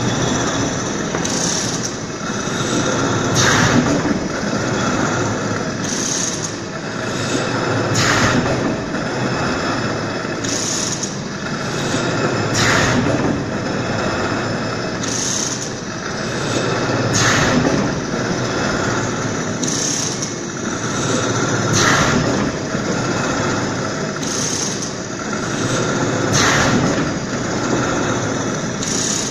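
Horizontal veneer slicer running: a steady machine drone with a short, sharp sound about every two and a half seconds, one for each stroke of the log past the knife as it slices off a sheet of veneer.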